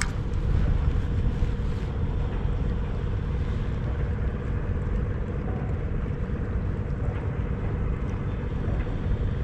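Wind buffeting the microphone in a steady low rumble, with a faint steady hum underneath.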